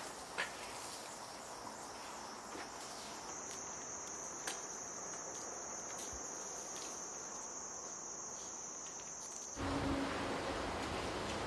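Insects chirring in a steady, high-pitched drone that starts about three seconds in and cuts off suddenly near the end, when a louder, even rushing noise takes over.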